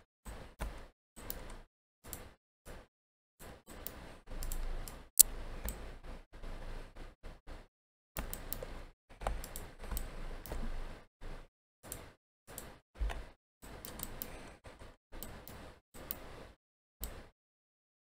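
Computer mouse clicks and keyboard key presses, irregular, with busier runs of rapid clicking about four seconds in, again around the middle, and near the end. One sharp click about five seconds in is louder than the rest.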